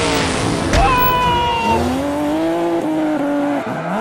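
Vehicle sound effects dubbed over toy trucks: a rush of noise, then a brief high tyre squeal, then an engine tone that rises and falls like revving.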